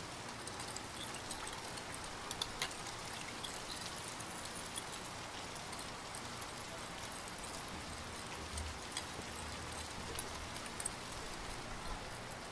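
Metal spoon stirring a thin sauce in a glass bowl, clinking and scraping against the glass in many small, light clicks over a steady hiss.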